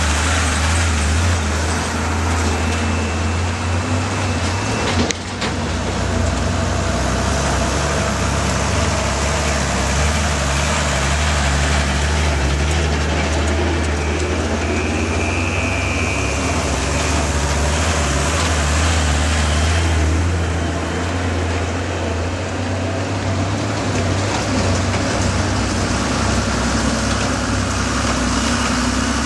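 Vehicle engine running with a steady low drone and road noise on a rough dirt mountain track, with a sharp click about five seconds in.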